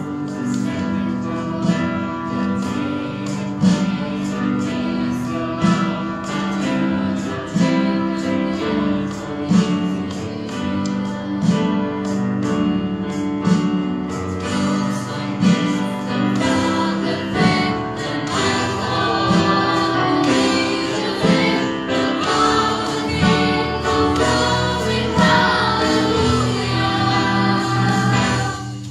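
A children's school band playing a slow ballad: an electronic drum kit keeps a slow beat with a hit about every two seconds, under keyboard and guitar chords. A group of children sings along, the voices growing more prominent from about halfway.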